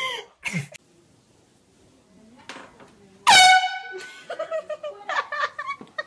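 A handheld compressed-gas air horn gives one short, very loud blast of under a second, a little past the middle, let off beside a sleeping person as a prank.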